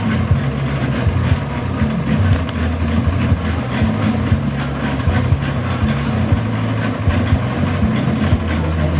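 Engine of a portable drum concrete mixer running steadily at constant speed while concrete is mixed for pouring a slab.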